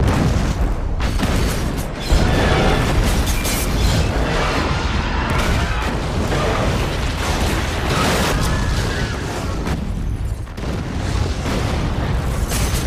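Film sound effects of a train exploding: a loud blast with a heavy low rumble, a second, louder boom about two seconds in, and the explosion rumbling on without a break, with film score underneath.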